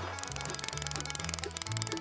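Background music with a bouncy stepping bass line and a fast, even ticking beat.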